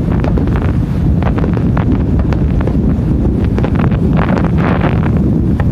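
Heavy wind rumbling on a smartphone microphone, over a scatter of sharp pops and crackle from aerial fireworks shells. The crackle is densest about four seconds in.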